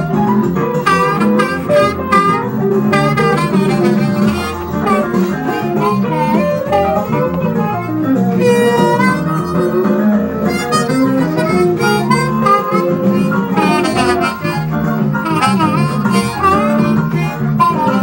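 Harmonica improvising blues-style lines with bent, wavering notes over a recorded funk band track with guitar.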